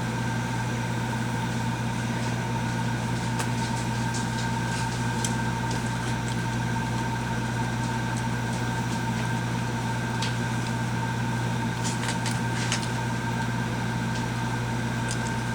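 Steady machine hum in the room, like an air conditioner or fan, with a low drone and a few steady higher tones, unchanging throughout. A few faint clicks come and go over it.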